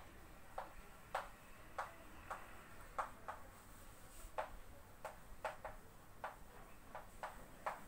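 Chalk tapping and scraping on a blackboard as a sentence is written by hand: faint, sharp, irregular clicks, about two a second.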